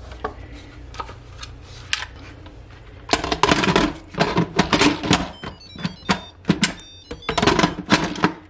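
Instant Pot pressure-cooker lid being set onto the pot and twisted to lock: a few soft clicks, then from about three seconds in a quick run of clacks and scrapes.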